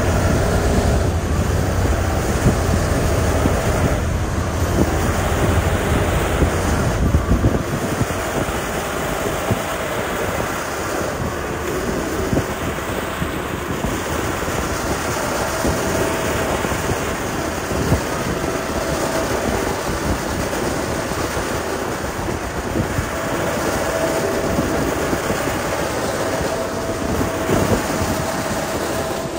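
Heavy diesel road-building machinery running close by on a gravel roadbed: a steady, loud mechanical din. A deep low rumble drops away about seven seconds in, and a steady whine comes and goes in the second half.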